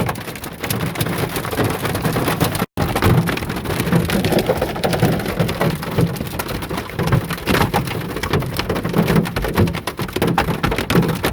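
Hail and rain pelting a car's roof and windows, heard from inside the cabin: a dense, irregular clatter of many small hard impacts. The sound cuts out for a moment a little under three seconds in.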